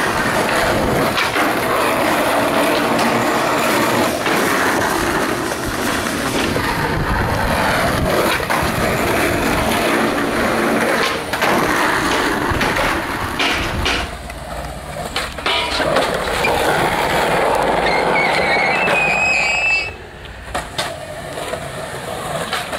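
Skateboard wheels rolling hard over rough asphalt and concrete with a steady grinding roar, broken by sharp wooden clacks of the board popping and landing. The sound drops off briefly twice as one clip gives way to the next.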